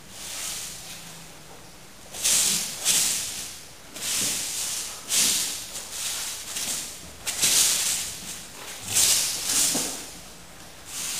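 A person moving with a wooden jo staff: a run of short hissing rushes, about one a second and unevenly spaced, from the body, breath and staff in motion.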